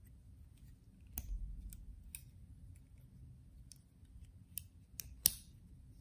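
Titanium handles and latch of a MoyeWorks Baly cutter mini balisong clicking as the knife is handled and folded closed: about seven short, sharp metallic clicks scattered over a few seconds, the loudest near the end.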